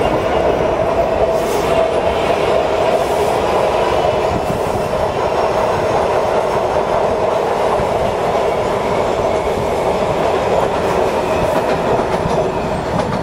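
WMATA Metro train running past on an elevated viaduct: a steady, loud noise of wheels on rail, with a steady tone running through it.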